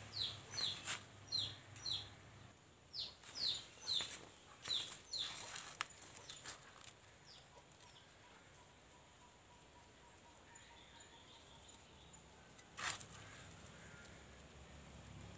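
A bird chirping repeatedly: quick chirps that drop in pitch, about two a second, which stop about six seconds in. A faint steady background follows, with one sharp click near the end.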